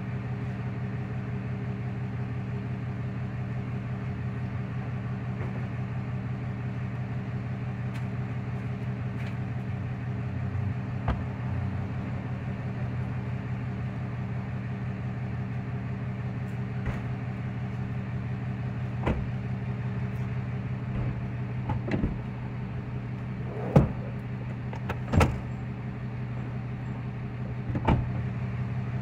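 Steady low mechanical hum. Several sharp knocks and clunks inside the car cabin in the last ten seconds or so, as the front headrests are fitted back into the seats.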